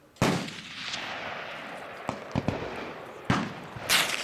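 Two .223 rifle shots about three seconds apart, each a sharp crack with a long rolling echo, with a few light clicks between them and another sharp crack near the end.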